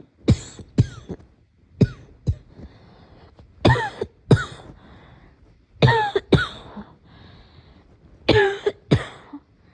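A person's morning coughing fit: sharp coughs coming mostly in pairs, a group about every two seconds, nine coughs in all.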